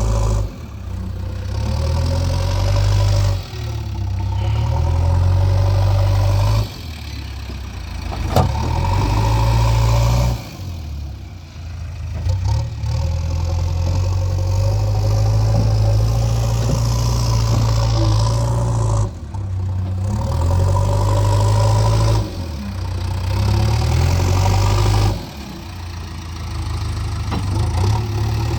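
Diesel engine of a JCB 3DX backhoe loader running under changing load while it digs and loads mud, with a deep rumble whose level jumps abruptly several times. A single sharp knock comes about eight seconds in.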